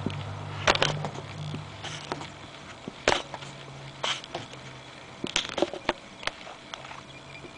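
Thin, squishy plastic water bottle being handled, giving scattered crinkles and clicks of the plastic. A low hum fades out in the first few seconds.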